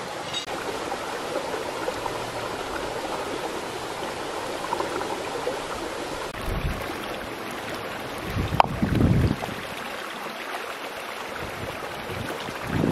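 Steady rushing of a flowing stream, with low gusts of wind on the microphone about six and a half and eight and a half seconds in.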